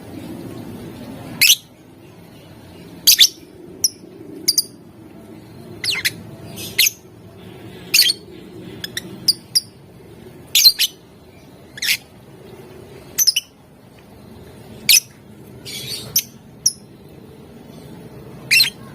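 Lovebird giving short, sharp, shrill calls about once a second, some in quick pairs, as used as a bait call to set other lovebirds calling.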